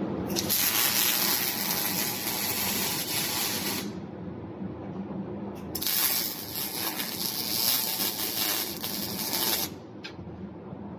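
MIG welder arc running in two welds of about four seconds each, a steady crackling hiss that starts and stops sharply.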